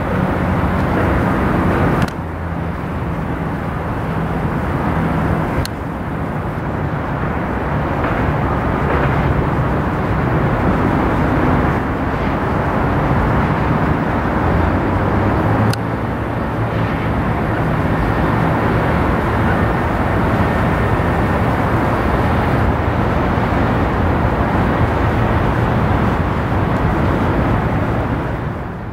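Steady outdoor rumble and hiss with a low hum, like a field recording by a road. It changes abruptly with a click at a few edit points and fades out near the end.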